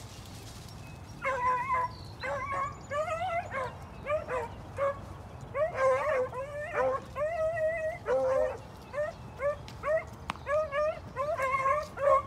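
Beagles baying as they run a rabbit's trail: a rapid series of short calls, with more than one dog giving voice at once, starting about a second in.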